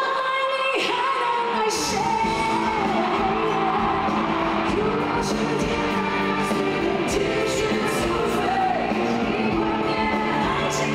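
Live pop-rock performance: a woman sings lead over a band with acoustic and electric guitars, opening on a long held note.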